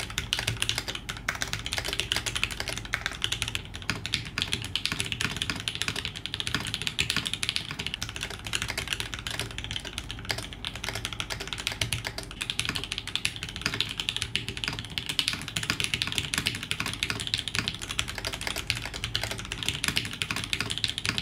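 Fast, continuous typing on a polycarbonate-case TGR Alice mechanical keyboard: a dense, steady stream of key clacks.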